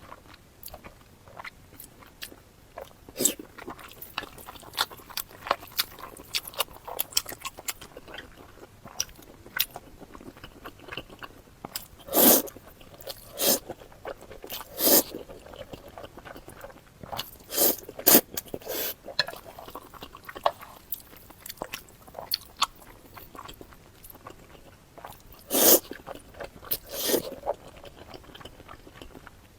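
Close-miked eating: chewing and crunching mouth sounds, many small crisp clicks with a few louder bites or crunches at irregular intervals.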